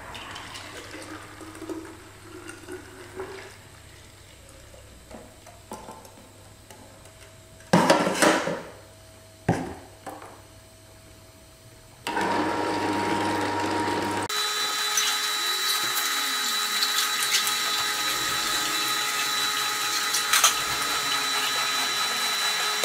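Froothie Optimum 600 slow masticating juicer running as it squeezes produce and pushes out pulp, a steady grinding noise with a thin whine. It is quiet at first, with a couple of sharp knocks of a jug or bottle about a third of the way in. It turns much louder and fuller from about halfway.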